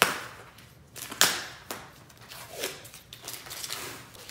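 Painter's tape being pulled up off a wood floor: a few short, sharp rips, the loudest about a second in.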